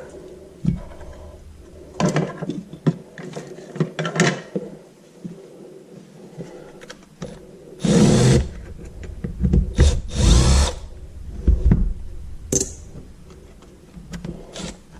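Small parts clicking and knocking as they are handled, then a cordless power drill run in two short bursts about two seconds apart, with a few shorter blips after.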